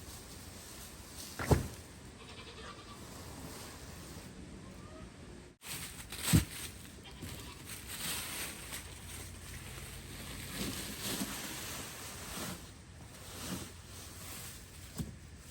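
Goats bleating, with two loud thumps, one about a second and a half in and another about six seconds in.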